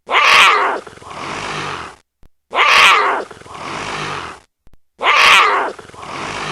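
An animal call played three times in identical succession, each a loud cry followed by a quieter, lower second part.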